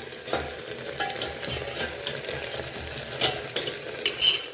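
Chopped okra frying and sizzling in a pan while it is stirred, with several sharp scrapes of the stirring utensil against the pan; the loudest come near the end.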